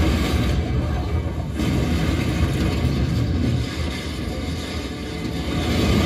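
Action-film battle soundtrack, a dense rumbling roar of effects with heavy bass, played through a Creative Inspire 5.1 5700 speaker system with subwoofer and picked up in the room. It eases off a little partway through and swells again near the end.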